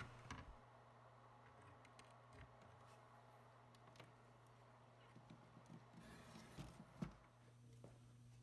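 Near silence: a low steady hum with a few faint clicks and taps, the sharpest about seven seconds in.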